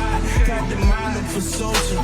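Background hip-hop music with a steady deep beat and rapped vocals.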